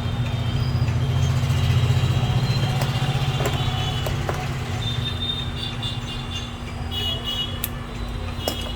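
Low rumble of a motor vehicle, loudest over the first few seconds and then easing off, under a steady hum and a few sharp clicks.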